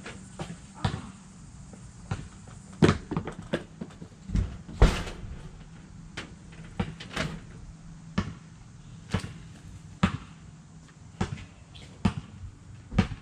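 A string of sharp knocks and thumps at uneven spacing, about one or two a second, the loudest about three and five seconds in.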